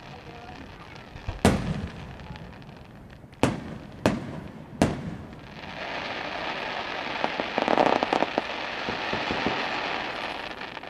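Aerial fireworks shells bursting overhead: four sharp booms in the first five seconds, then about five seconds of dense crackling from crackle effects that fades out near the end.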